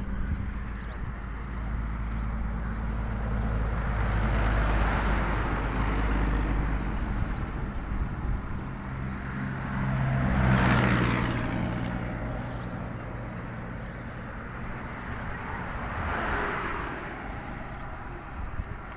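Road vehicles passing by one after another, each swelling and fading away. There are three passes, the loudest about eleven seconds in, carrying an engine hum.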